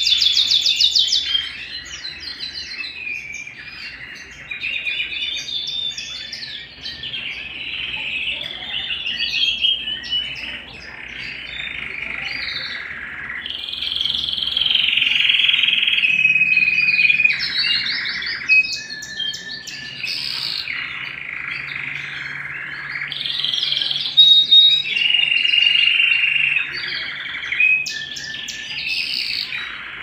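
Domestic canary singing a long, near-continuous song of rapid trills and rolls, broken by a few short gaps and some clear held whistled notes.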